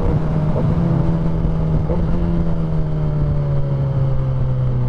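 Sport motorcycle engine running while riding, its pitch falling slowly as it slows, with a shift to a different note near the end. A steady rush of wind noise lies under it.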